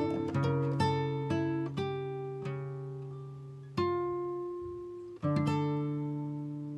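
Background music: an acoustic guitar picking notes and chords that ring out and fade. They come about every half second at first, then are held longer before each new chord.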